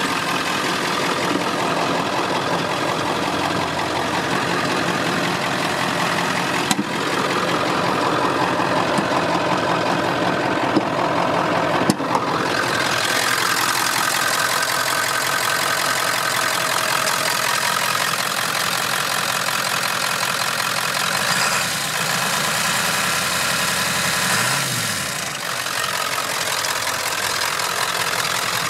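A 1997 Ford F450's 7.3-liter Power Stroke turbo-diesel V8 idling steadily. A few sharp clicks come near the middle, and the engine sound grows brighter after about twelve seconds, heard close to the open engine bay.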